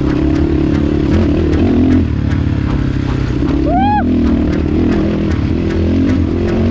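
Dirt bike engine running steadily under way along a trail, heard from the rider's position. About four seconds in, a short call rising then falling in pitch sounds over it.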